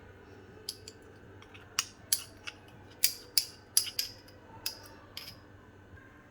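About a dozen sharp metallic clinks and taps of a kitchen utensil, coming at irregular intervals and each ringing briefly.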